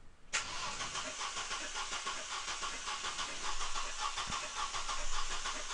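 Starter motor cranking a four-cylinder car engine at about 200 rpm with the throttle held wide open and the fuel cut off, so it turns over with a steady rhythmic pulse but never fires. It starts abruptly about a third of a second in. One cylinder has its spark plug removed and makes no compression.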